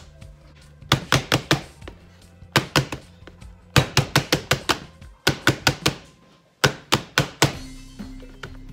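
A small metal springform pan full of soft cheesecake filling being rapped repeatedly against a ceramic plate, in quick bursts of four or five sharp knocks about a second and a half apart, to settle and level the filling. Background music plays underneath.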